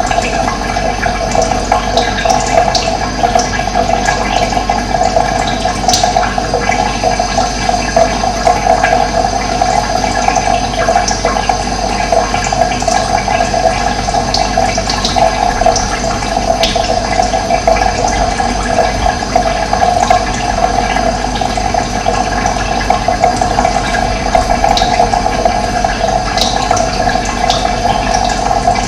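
Running water flowing and gurgling, steady, with no break.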